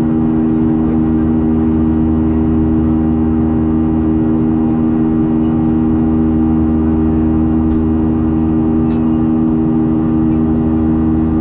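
Boeing 737 jet engines heard from inside the passenger cabin in flight: a loud, unchanging drone with a steady hum and a rush of air.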